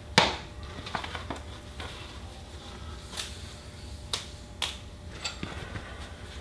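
Scattered sharp clicks and light knocks of things being handled, about seven in all, the loudest a fraction of a second in, over a low steady hum.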